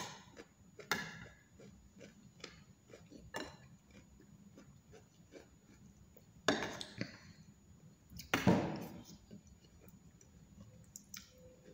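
Metal spoon clinking and scraping on a plate of rice while eating, in many short light clicks. Two louder, longer noisy sounds come about six and a half and eight and a half seconds in.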